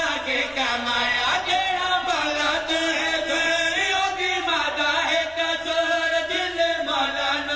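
A solo voice chanting a qaseeda, a devotional poem in praise of the Prophet's family, in long held notes that waver and glide between pitches.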